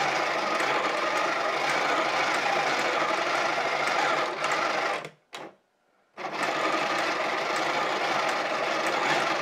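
Small battery-powered electric motor of a plastic working model four-cylinder engine running steadily, driving its plastic pistons, gears and fan belt. It cuts out about five seconds in and starts again about a second later.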